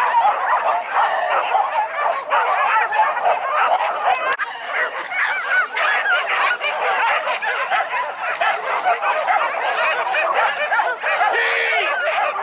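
A pack of hunting dogs yelping and baying all at once in a dense, continuous chorus of overlapping high calls.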